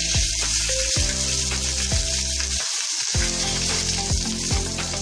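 Hot Dalda (vanaspati fat) sizzling steadily in a steel pot on the stove as cooked rice is layered in, over background music with a steady beat.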